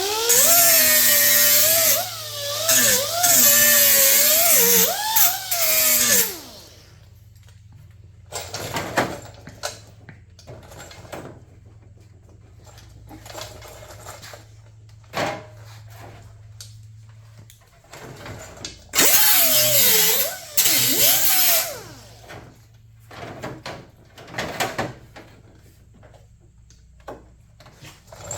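Power grinder grinding the edge of a steel sheet-metal patch panel in two bursts, the first about six seconds long and the second about three seconds, its whine dipping and wavering as it bites into the metal. Between the bursts there are light knocks and clicks of the panel being handled.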